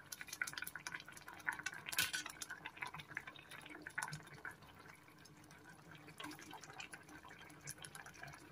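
Pork sinigang broth heating in an aluminium pot, bubbling and ticking faintly as it comes up to a simmer, with a spoon clinking against the pot a few times. A faint steady hum sits underneath.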